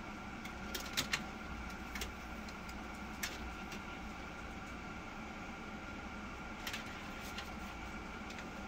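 Steady machine hum with a thin high whine running under it, broken by a few short clicks about one, two, three and near seven seconds in.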